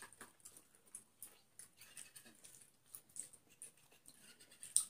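Faint close-up eating sounds of chicken and rice eaten by hand: irregular lip smacks and wet chewing clicks, with one sharper smack shortly before the end.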